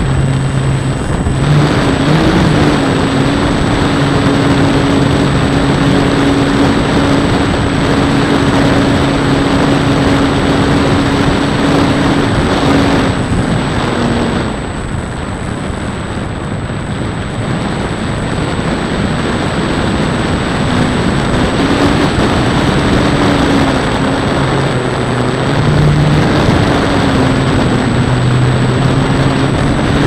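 Model airplane's motor and propeller droning steadily in flight, heard from a camera on the plane, with heavy wind rush over the microphone. The drone eases back a little about halfway through and picks up again near the end.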